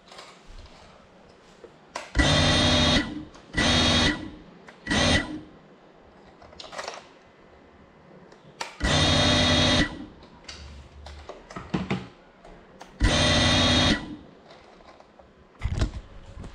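A GEPRC Cinelog 35 cinewhoop's brushless motors and ducted 3.5-inch propellers spinning up in six short throttle bursts while the drone sits on the floor. Each burst is a steady whir lasting a second or less, the last one very brief.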